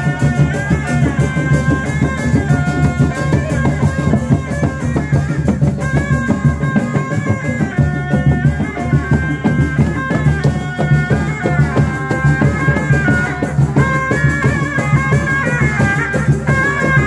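Sundanese reak ensemble music played live: steady drumming with a high stepping melody line above it.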